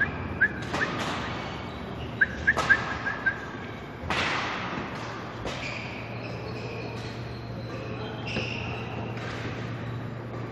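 Badminton play on a wooden indoor court: sharp racket hits on the shuttlecock and short, high shoe squeaks, echoing in a large hall. The hits and squeaks come in clusters over the first four seconds or so; after that a low steady hum remains.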